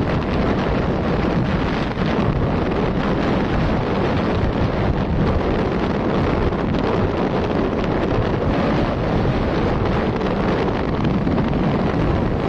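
Steady wind rushing over the microphone of a moving motorcycle.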